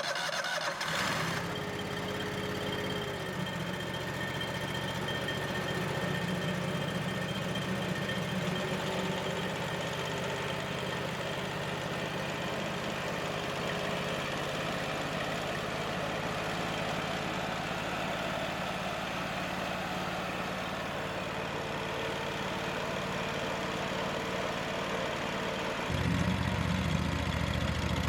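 Vintage sawmill's carburetted engine running steadily just after starting. About 26 seconds in, its sound gets a little louder and fuller in the low end.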